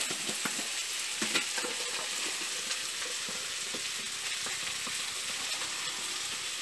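Chopped onions sizzling steadily in hot oil in a frying pan, with a few light clicks and knocks in the first two seconds.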